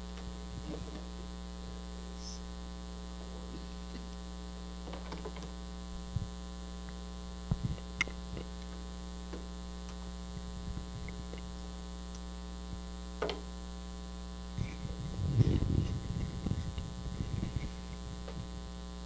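Steady electrical mains hum, with a few faint clicks and a short stretch of rustling and handling noise about three-quarters of the way through.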